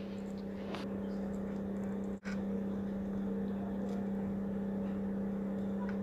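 Steady low electrical hum with a few faint clicks, briefly cutting out about two seconds in.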